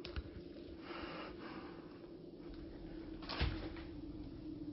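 Quiet room tone with a faint steady hum and a single soft knock about three and a half seconds in.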